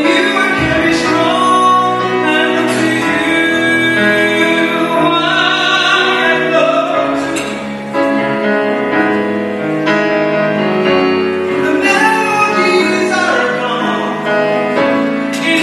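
A man singing in a classical, operatic style with vibrato, accompanying himself on a grand piano.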